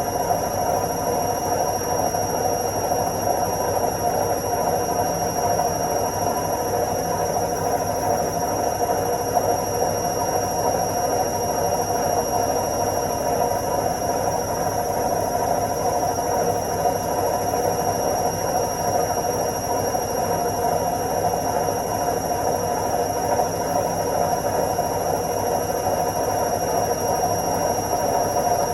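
Washing machine on its spin cycle: a steady, even whirring rumble of the drum spinning at speed, with a faint steady high whine over it.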